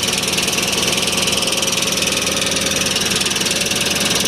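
Toyota 4Runner V8 idling steadily with a constant whining noise over the engine sound. The owner can't place it; he finds it louder underneath the vehicle and has wondered about the transmission or the valves.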